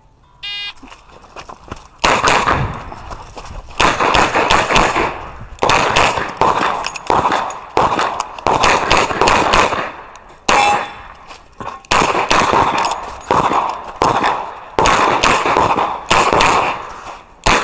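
An electronic shot timer beeps once, then a Smith & Wesson 627 eight-shot .357 Magnum revolver fires a long string of shots with pauses between groups, each shot followed by ringing reverberation.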